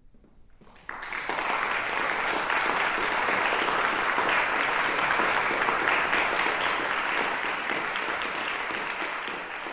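Audience applauding: after near quiet, a crowd of many hands breaks into clapping about a second in, holds steady, and begins to thin near the end.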